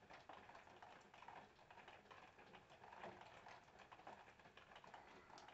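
Near silence, with faint scattered light ticks and crackles.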